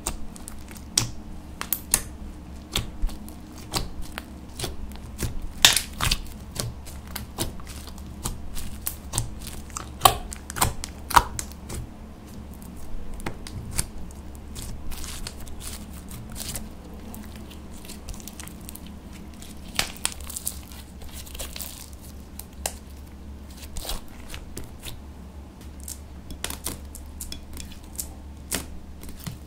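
Hands kneading and stretching sticky slime, giving irregular sticky pops and crackles, loudest in the first half, over a low steady hum.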